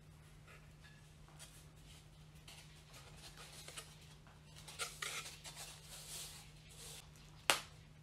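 Faint rustling and scraping as balsa wood strips are handled and pressed against the ribs of a wing on a building board, louder for a second or two just past the middle, then a single sharp click near the end.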